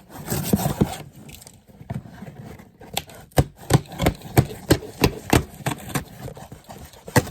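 Cardboard shipping box being cut and opened: a short scraping, tearing burst, then a run of sharp knocks and taps as the box is handled.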